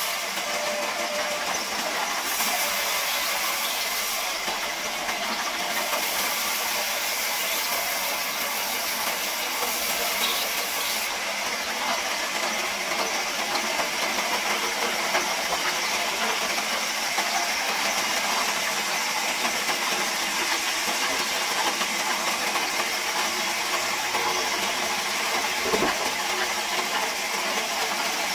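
Large sawmill band saw running, its blade cutting a log lengthwise with a steady high hiss. A single dull knock near the end.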